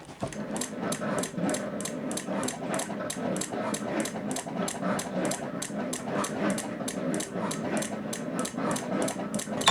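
Honda Ruckus 49cc four-stroke single being turned over by its electric starter, cranking at a slow, even rhythm of about four pulses a second without firing. The engine does not start, and the owner suspects a weak battery.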